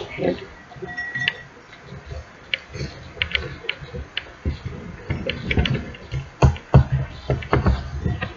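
Spoon mixing thick, sticky slime in a bowl, making irregular clicks, taps and soft knocks.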